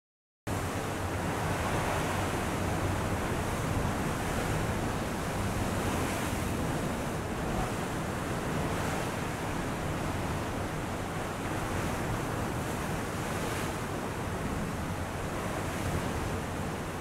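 A steady, even rushing noise with no music or tones, starting about half a second in after a brief silence.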